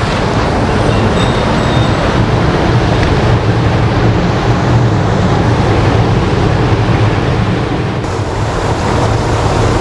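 Fast water rushing steadily through an irrigation canal, a loud even roar with no breaks.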